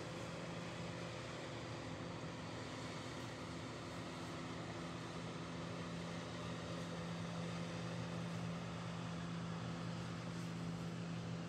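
A steady low motor drone over an even hiss, growing slightly louder about halfway through.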